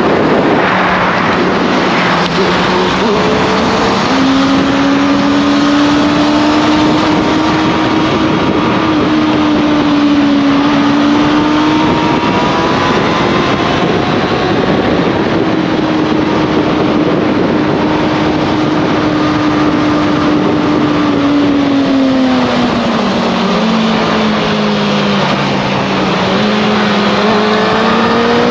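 Motorcycle engine running at steady riding speed under a heavy rush of wind noise. Its pitch rises about four seconds in, holds, drops lower a little over twenty seconds in, then climbs again near the end.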